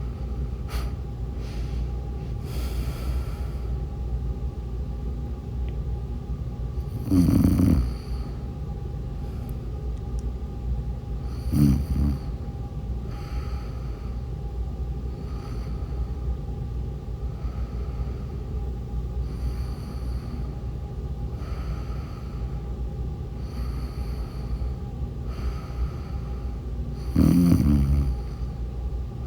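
A woman snoring in her sleep: three loud, fluttering snores about seven, eleven and a half, and twenty-seven seconds in, with quieter breaths about every two seconds between them over a steady low hum.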